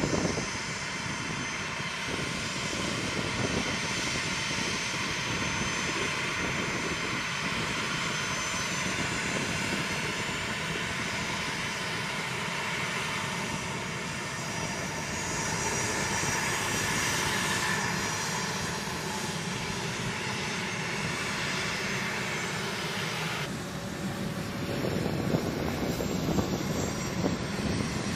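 A-10C Thunderbolt II jets taxiing, their TF34 turbofan engines running steadily: a continuous jet roar with a high whine over it. The sound shifts abruptly once, late on.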